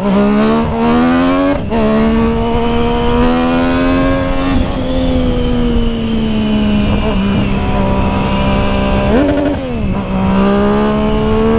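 Yamaha MT-09's inline three-cylinder engine under hard acceleration, its pitch climbing and dropping sharply at gear changes about two and five seconds in, holding fairly steady, then a short rise and drop near the end before climbing again. Wind rushes over the microphone throughout.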